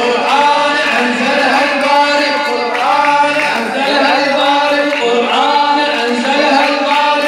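A male radood singing a melodic devotional chant into a microphone, amplified through a PA, in phrases that recur about every two and a half seconds.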